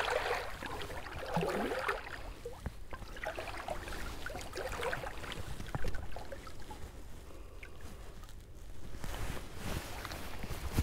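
Water splashing and sloshing as a redfish is released by hand and swims off, followed by small knocks and water lapping against the boat, with a little more splashing near the end.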